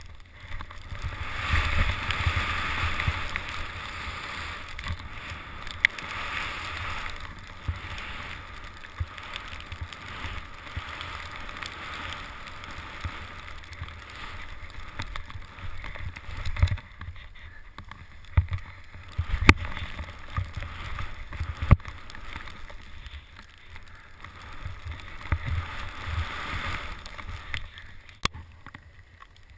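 Skis running through deep powder snow: a steady rushing hiss that swells on the turns, with scattered low thumps and a few sharp knocks.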